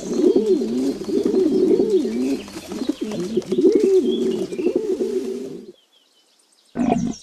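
Pigeon cooing: a run of low, rolling coos that rise and fall in pitch, one after another for several seconds before stopping.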